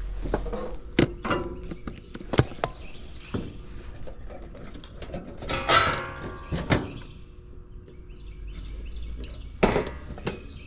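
Scattered knocks and clicks of metal hand work on equipment, with a louder ringing metallic clank about six seconds in and another near the end. Birds chirp in the background.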